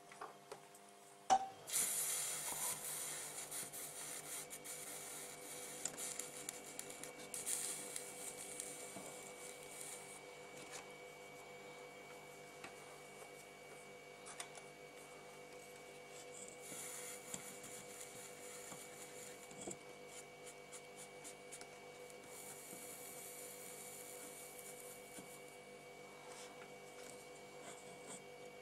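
Faint, scratchy rubbing in patches, with small ticks: a cotton swab scrubbing flux residue off a soldered circuit board with acetone. A sharp click about a second in, and a faint steady electrical hum underneath.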